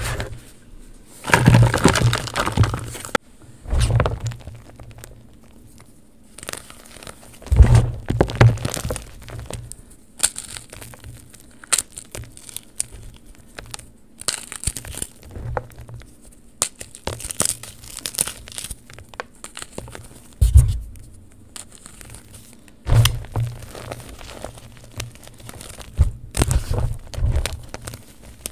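Friction Labs Super Chunky climbing chalk crushed and squeezed between the fingers in a plastic tub: clusters of crunches and crackles as the chunks break, every few seconds with quiet gaps between. The chalk's foil bag crinkles near the start.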